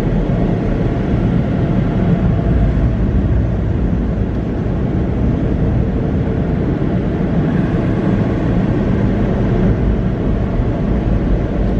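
Tunnel car wash air dryers blowing, heard from inside the car: a steady, loud rushing noise that does not change.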